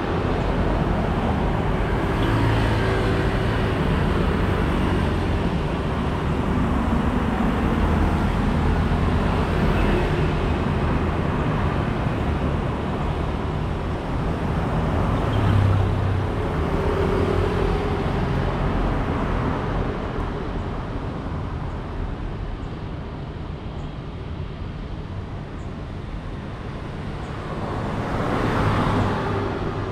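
City road traffic at rush hour: a steady stream of motorbikes and cars passing close by, engines humming over tyre noise. It eases off in the second half, then one more vehicle passes loudly near the end.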